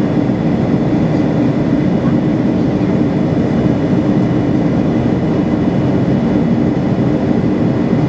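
Steady engine and airflow roar of a Boeing 737-500 in flight, heard inside the cabin at a window seat beside its CFM56-3 turbofan, with a faint steady high whine.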